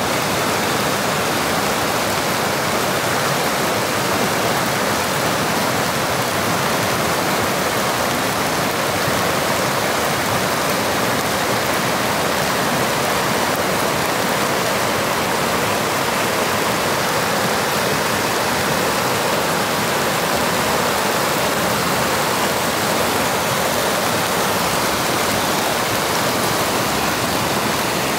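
Fast mountain river rushing over rocks and small rapids: a steady, unbroken rush of water.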